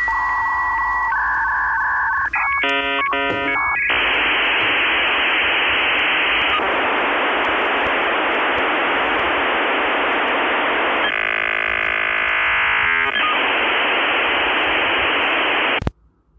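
Dial-up modem handshake: short tones and a brief chord of many stacked tones, then a long, steady, telephone-band hiss with a short tonal stretch about two-thirds through, cutting off suddenly near the end.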